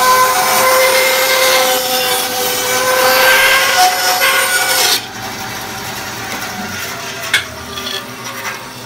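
Record Power BS400 bandsaw with a 3/8-inch blade cutting a curved line through a block of wood, a steady sawing noise over the machine's whine. About five seconds in the cutting stops and the sound drops to a quieter steady running, with a single click near the end.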